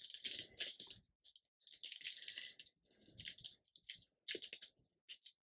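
Paper rustling and crinkling in a series of short, irregular bursts as cut paper pieces are handled and slid into place.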